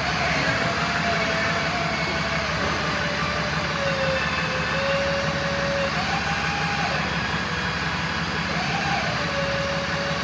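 Diesel truck engine, a 6.7-litre six-cylinder, running steadily with the Versalift bucket boom being worked, a whine over the engine dipping and rising in pitch a few times as the boom is operated.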